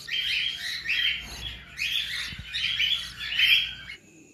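Cockatiel chicks calling over and over in short, rapid chirps that overlap one another. The calls stop abruptly near the end.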